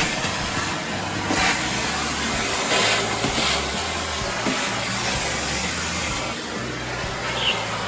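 Philips Performer Silent vacuum cleaner running with a steady whooshing motor noise. Despite the 'Silent' name, it is noisy enough that the reviewer judged it not really silent.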